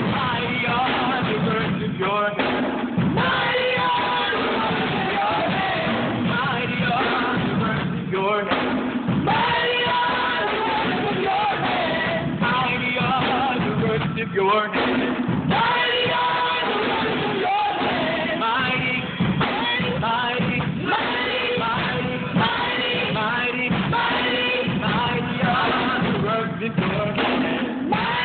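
Live worship music: voices singing a song over instrumental accompaniment.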